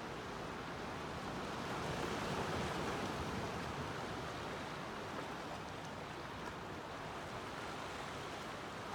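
Gentle Pacific Ocean surf on a calm day: a steady wash of small waves, swelling a little about two to three seconds in and then settling back.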